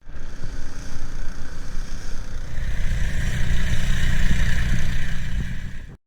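An engine running steadily with a low, fast-pulsing rumble, which starts and cuts off abruptly.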